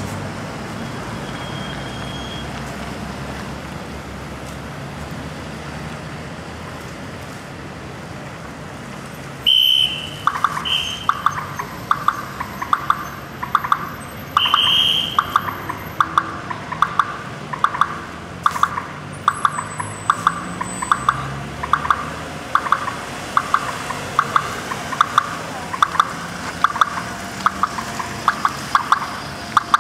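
Street traffic noise, then from about ten seconds in a steady series of short electronic beeps about every two-thirds of a second, with a few short higher-pitched beeps mixed in near the start of the series.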